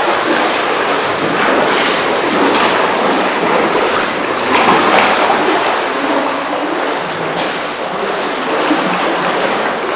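Sea surf washing among granite boulders: a steady rushing noise that swells a little about halfway through.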